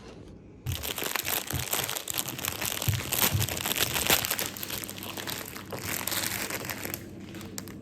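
Plastic snack wrapper crinkling as it is handled, starting abruptly about a second in, with a few soft knocks, and easing off near the end.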